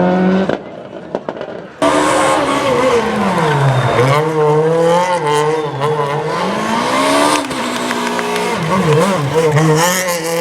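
Rally car engine revving hard, its pitch falling and climbing again and again as the driver brakes and changes gear, with quick wavering blips near the end. The sound drops away briefly about a second in.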